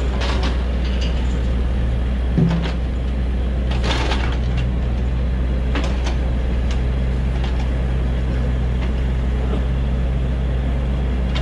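Hydraulic excavator's engine running steadily, with scattered knocks and clanks from the log grapple and logs, and one heavier thump about two and a half seconds in.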